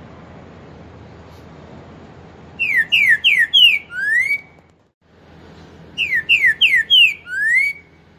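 Green-winged saltator (trinca-ferro) singing its four-note 'boi' song twice: four quick falling whistled notes, then a longer rising note that ends each phrase.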